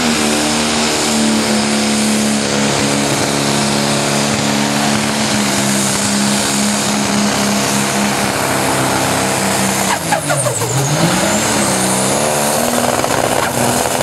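Pro Stock pulling tractor's diesel engine, on a John Deere 4440, running at high revs under full load as it drags the weight-transfer sled. About two-thirds of the way through, the revs sag sharply under the load and then climb back, with a high whistle dipping and rising along with them.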